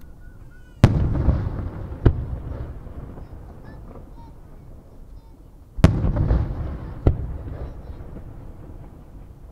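Aerial firework shells bursting: a loud boom about a second in and a second one just over a second later, then the same pair again about five seconds later, each trailing off in a low rolling echo.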